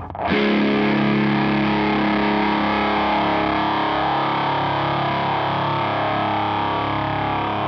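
Electric guitar through a Catalinbread Carbide distortion pedal set with every knob at the middle: one distorted chord struck about a third of a second in and left to ring out, nasty, with a metallic edge as the notes sustain.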